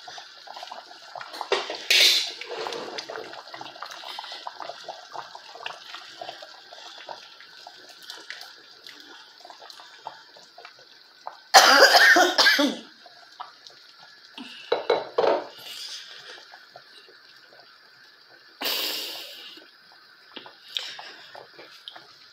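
A pot of soup at a rolling boil, bubbling and hissing steadily, broken by a few loud coughs from the cook, the loudest about halfway through.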